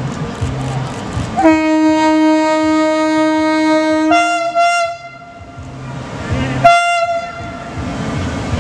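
Renfe class 269 electric locomotive sounding its horn as it pulls out of the station: one long low note of nearly three seconds that steps up to a higher note for a moment, then a short blast on the higher note about two seconds later, over a low running hum.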